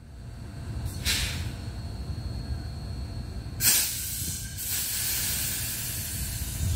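DART 8100-class electric train standing at the platform with a steady low rumble, broken by two bursts of compressed-air hiss: a short one about a second in and a louder, longer one a little past halfway.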